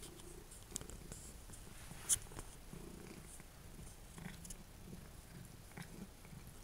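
Domestic cat purring close to the microphone while it grooms, with soft licking clicks scattered through and one sharper click about two seconds in.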